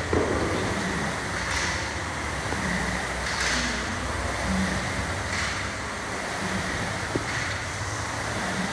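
A pair of dumbbells set down on a rubber gym floor with a thud right at the start. Then a steady rushing background noise, with a soft breathy swell about every two seconds and a small click near the end.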